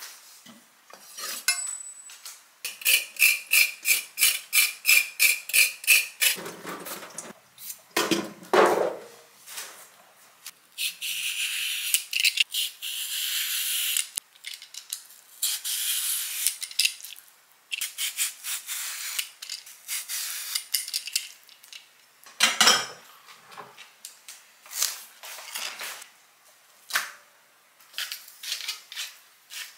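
A peeler shaving a cucumber into thin ribbons in repeated quick scraping strokes, with knocks of kitchen utensils, then the clicks of a salt grinder near the end.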